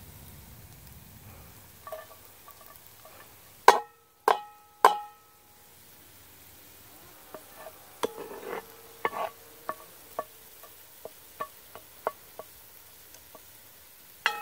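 A wooden spoon knocking against a cast iron Dutch oven, which rings briefly after each knock: three loud taps about four seconds in, then a run of lighter knocks while onions, peppers and garlic are stirred, over a faint sizzle of frying.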